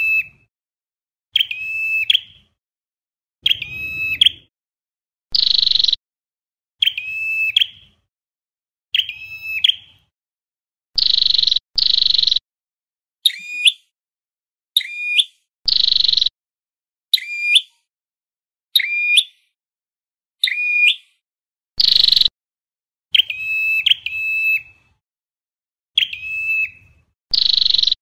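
Ashy tailorbird (Orthotomus ruficeps) calling: loud notes repeated about every second and a half, alternating a harsh buzzy note with a sharp, clear note that drops in pitch.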